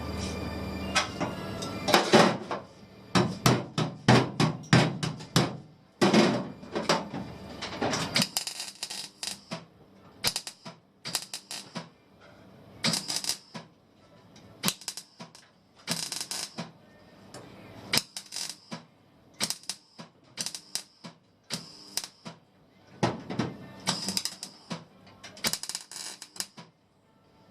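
Welding in many short, irregular crackling bursts, each a fraction of a second, like tack or stitch welding a replacement car floor pan from the top. A low hum runs under the first third and stops about eight seconds in.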